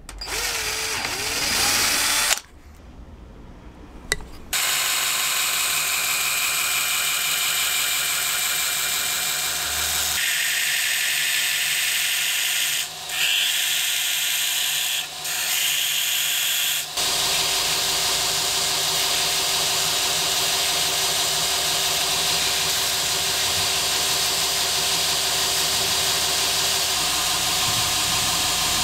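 Belt grinder running, its abrasive belt sanding the edge of a 2.4 mm Kydex sheath held against it with a steel template screwed on. The noise is steady and loud, with a few brief dips in the middle, and a short, different sound before it in the first couple of seconds.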